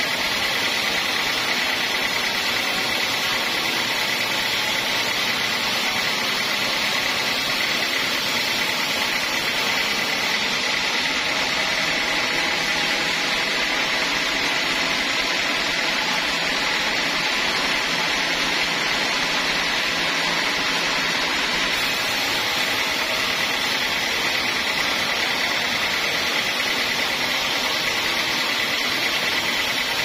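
Horizontal band sawmill running and sawing lengthwise through a hardwood acacia log: a steady, even cutting noise with a constant high-pitched tone.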